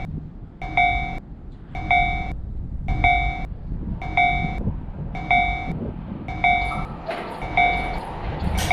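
Japanese railroad crossing warning bell ringing its "kan-kan" about once a second, over a steady low rumble. Toward the end the noise of an approaching train grows louder.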